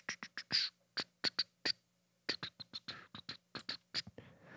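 A quick, irregular run of small, soft clicks and taps, about twenty in the space of four seconds, over a faint steady low hum.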